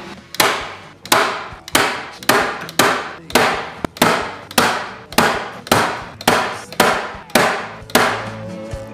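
Hand-squeezed staple gun firing over and over, about fourteen sharp snaps a little over half a second apart, as it staples carpet onto a round speaker spacer ring.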